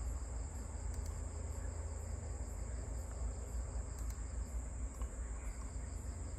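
Crickets chirring as one steady, high-pitched drone over a low steady rumble, with two faint clicks about one and four seconds in.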